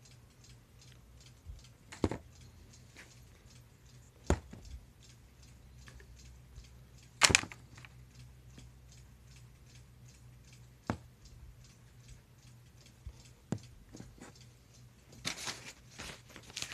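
Plastic bottles and packaging handled in a cardboard box: scattered short knocks and clicks a few seconds apart, the loudest about seven seconds in and a quick cluster near the end, over a faint low hum.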